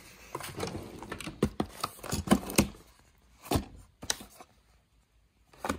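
Light handling noises: a quick run of clicks and knocks with rustling in the first half, then three separate knocks.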